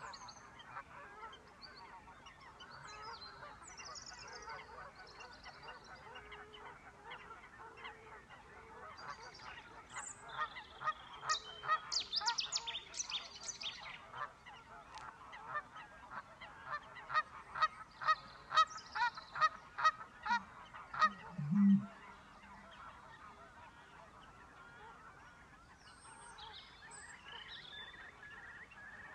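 Geese honking. A quick run of repeated calls builds about ten seconds in and stops abruptly about twenty-two seconds in, with a brief low boom at the very end of it. Faint, high songbird calls come in at the start and near the end.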